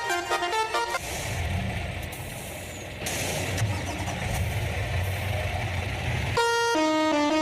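A truck's engine rumbling with road traffic noise for about five seconds. It is framed by a melody of clean stepping tones in the first second and again near the end.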